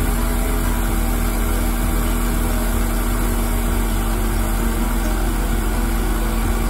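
Bucket truck's engine idling steadily, with a constant hum over a low drone.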